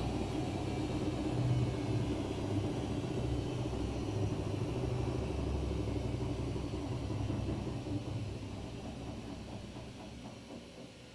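Daewoo DWD-FT1013 washing machine spinning at 800 rpm: a steady low rumble from the drum and motor that fades away over the last few seconds as the spin winds down.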